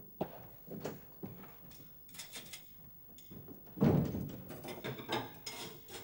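Dishes and kitchen utensils clattering and clinking as they are handled and set down at a sink, with irregular knocks and a heavier knock about four seconds in.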